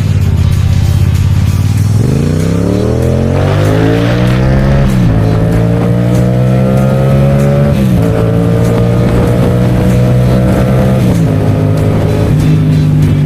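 Yamaha MT-07's 689 cc crossplane parallel-twin engine running. It holds steady for about two seconds, then climbs in revs and drops back sharply three times, about three seconds apart, before settling to a steady note near the end.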